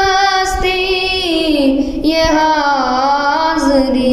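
A boy singing an Urdu naat without accompaniment, drawing out long held notes that glide slowly up and down in pitch.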